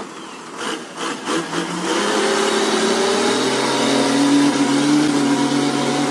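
Engine of a truck heavily loaded with logs revving hard under load on a muddy climb. The pitch rises about two seconds in and is then held high and steady.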